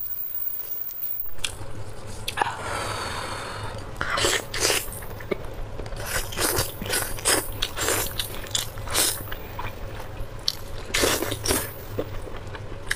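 Close-miked eating of spicy braised sheep's head: a longer noisy sound about two and a half seconds in, then many quick sharp bites and chewing sounds in an uneven run.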